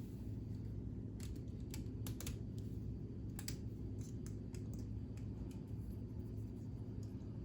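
Light plastic clicks and taps, about a dozen scattered unevenly, as K'nex pieces are unclipped and handled, over a steady low hum.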